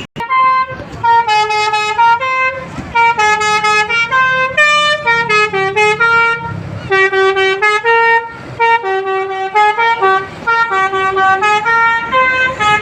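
Telolet multi-tone air horn of an Indonesian tour bus playing a tune: runs of short notes stepping up and down in pitch, in phrases with brief breaks between them.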